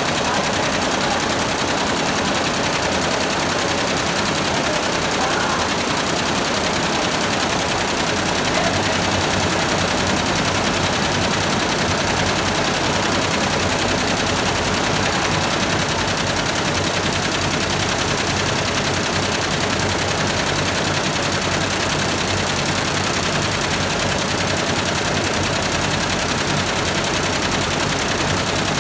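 Computer embroidery machine running, its needles stitching in a fast, steady clatter.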